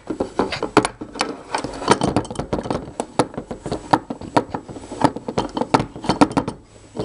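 Steel C-clamp being tightened by hand onto glued wooden pieces: the threaded screw and swivel pad clicking and rattling in quick, irregular ticks, several a second, with a brief lull near the end.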